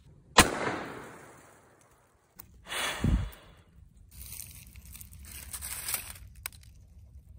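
A single shot from a large stainless revolver, a sharp crack with a long echoing tail that dies away over about a second and a half. A second, shorter loud sound follows about two and a half seconds later, falling in pitch.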